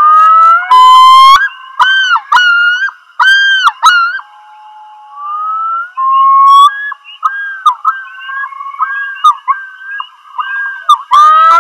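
Common loon's yodel call played from a recording: rising notes that break into a long run of repeated up-and-down phrases.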